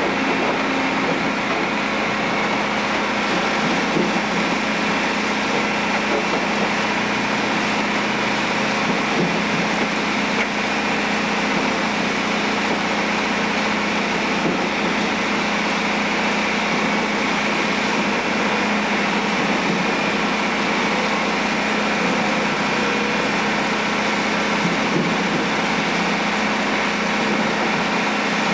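Badger B-2060-S shredder running steadily while grinding asphalt: a continuous machine drone mixed with grinding noise.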